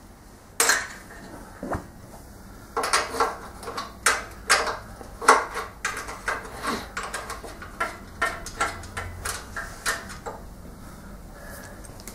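Loose steel nuts and washers clinking together, a dozen or so irregular clinks, as the engine's mounting nuts with their spring and flat washers are taken off and gathered in the hand.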